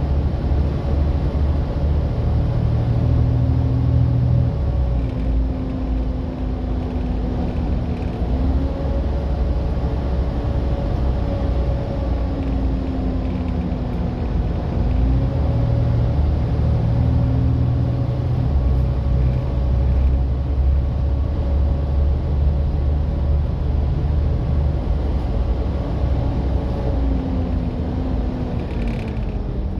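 Volvo B7TL double-decker bus running, its 7-litre straight-six diesel rumbling under a vacuum-cleaner-like "hoovering" whine. The whine holds, then drops in pitch several times.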